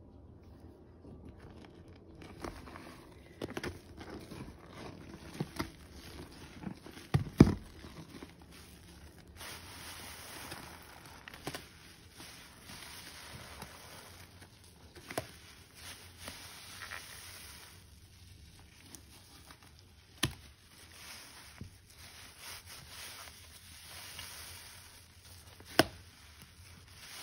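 Soapy sponge squeezed by hand: wet squelching and crackling of foam, with several sharp clicks and knocks, the loudest about seven seconds in and another near the end.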